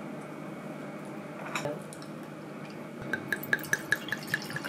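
Liquid glugging out of a bottle into a glass: a quick, regular run of glugs, about six a second, starting around three seconds in.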